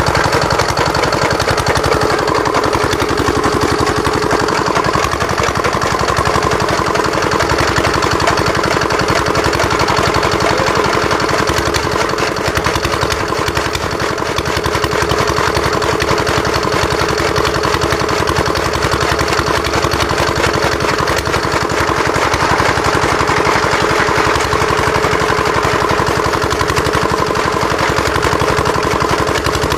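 Small diesel engine running steadily, belt-driving a flywheel chaff cutter that chops green fodder as it is fed in.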